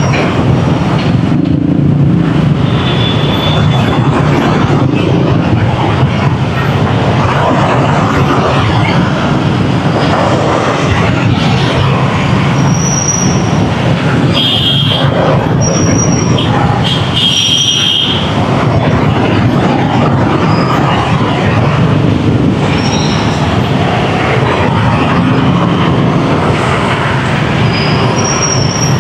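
Dense rush-hour motorbike traffic: a steady loud din of scooter engines and road noise, with short horn beeps several times.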